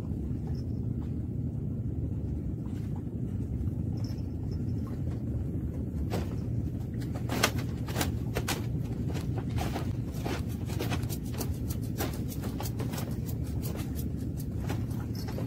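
A steady low rumble under irregular sharp clicks and knocks that begin about six seconds in and come thick and fast toward the end: footsteps and handling on the wooden deck of a fishing platform.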